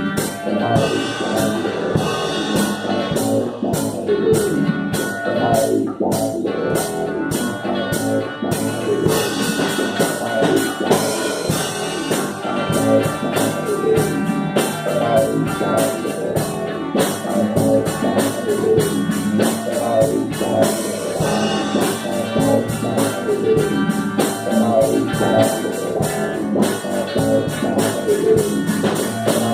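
Instrumental psychedelic rock band playing: electric guitars over a steady drum kit beat, with synthesizer.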